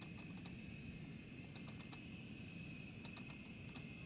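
Insects chirping, quick clusters of clicks over a steady high drone, with a faint steady low rumble underneath.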